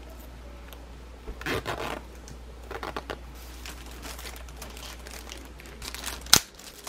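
Clear plastic packaging crinkling in short spells as a wallet sealed inside it is handled, with one sharp tap near the end.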